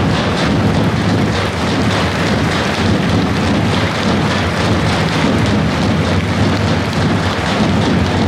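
An ensemble of Macedonian tapans, large double-headed folk drums, beaten together in a fast, dense rhythm without a break, the many deep strokes blurring into one another.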